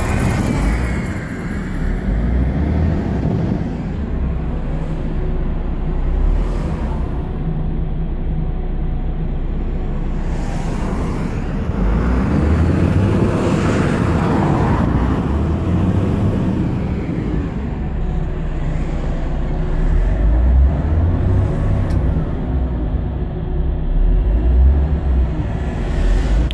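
Volvo B12BLE city bus's DH12E diesel engine running in neutral and being revved, a deep rumble that swells several times, with a car passing by about halfway through.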